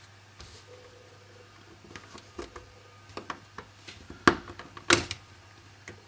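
Plastic pry tool levering the back shield off a Samsung Galaxy Note 2's front frame, the snap clips clicking loose: scattered small clicks, with two louder snaps about four and five seconds in.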